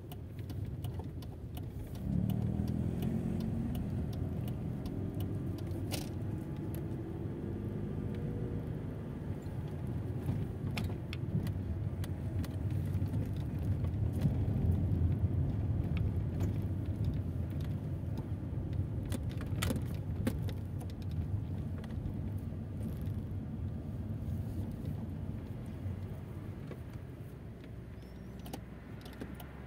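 Mercedes-Benz car's engine and road noise heard from inside the cabin while driving; about two seconds in the engine note climbs as the car pulls away, then settles into a steady low drone, with a few sharp clicks and rattles, and it quietens near the end as the car slows.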